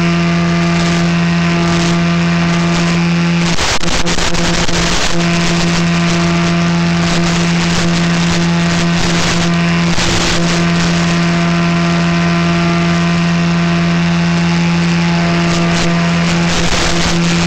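RC paramotor's motor and propeller running steadily in flight: a constant pitched drone that falters briefly about four seconds in, with crackles over it.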